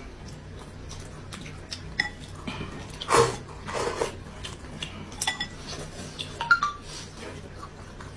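A spoon clinking and scraping against a bowl in short, scattered taps, with two loud slurps of soup from the bowl about three and four seconds in.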